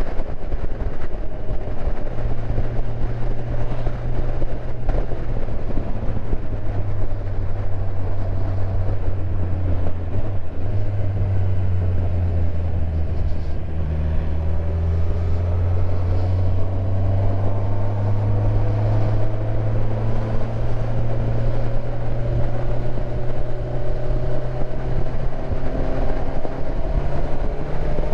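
Motorcycle engine running under way with wind and road noise, a steady low drone that slowly rises in pitch from about halfway through as the bike accelerates.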